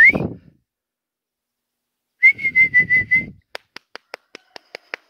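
A person whistling: after a short silence, a warbling whistle about two seconds in lasting about a second, then an even run of short sharp clicks about five a second.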